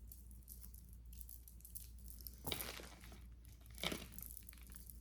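Faint rustling and crinkling as jewelry and its packaging are handled, with two louder brief rustles about two and a half and four seconds in, over a low steady hum.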